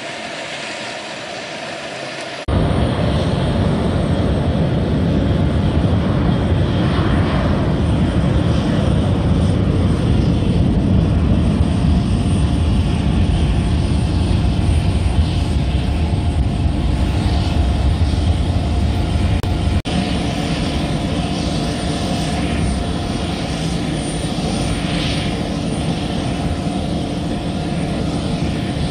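Airplane engines at high power as aircraft take off from the runway: a loud steady rumble with a drone of steady tones over it. The sound is quieter at first, jumps up abruptly about two and a half seconds in, and steps down abruptly again about two-thirds of the way through.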